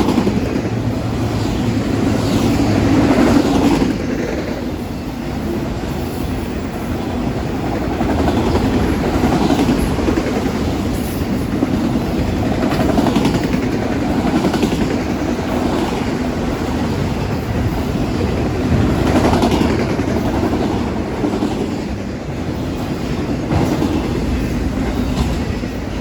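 Freight cars of a Norfolk Southern train rolling past: a continuous rumble of steel wheels on rail with clickety-clack, swelling and easing every few seconds.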